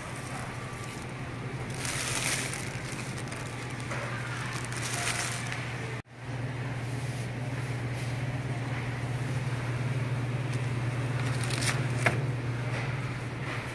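Grocery store ambience: a steady low hum with brief rustling and handling noises about two, five and twelve seconds in. The sound cuts out for an instant about six seconds in.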